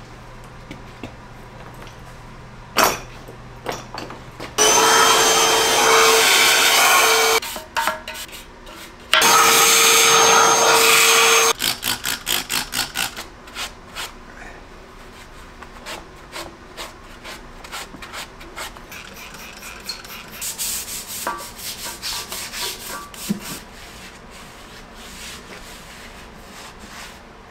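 A cloth wiping down the cast-iron column and base of a milling machine in quick rubbing strokes, after a single clunk about three seconds in. Two loud, steady hisses of a few seconds each come in the first half and are the loudest sound.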